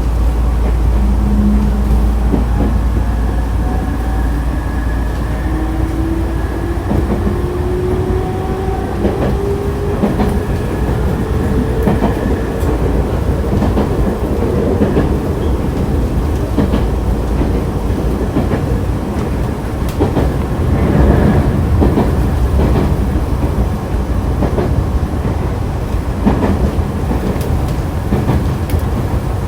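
Nankai 2000-series electric train running, heard from inside the car: the traction motor whine climbs steadily in pitch for several seconds as the train accelerates away from a station, over constant running noise with the wheels clicking over rail joints.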